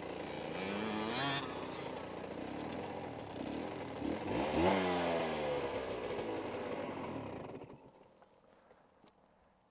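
Aprilia RS125's single-cylinder two-stroke engine revving while the bike is ridden, its pitch rising and falling with the throttle and loudest about four to five seconds in. The sound drops away to near silence about eight seconds in.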